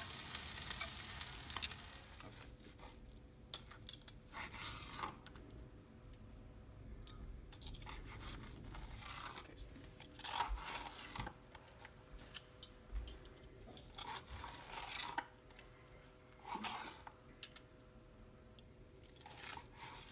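Steak sizzling on a hot grill for the first two seconds or so, then a knife slicing cooked steak against a plastic cutting board: short scrapes and clicks of knife and fork every few seconds.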